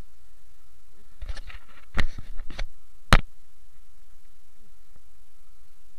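Handling noise as an arm brushes and knocks against the camera: a short run of rubbing and knocks a little past a second in, then one sharp click about three seconds in, over a steady low rumble.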